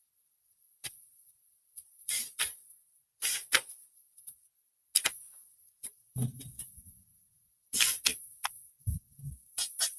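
Paper packaging being handled and unwrapped, with irregular short crinkles, rustles and clicks. Two soft low thuds come at about six and nine seconds in.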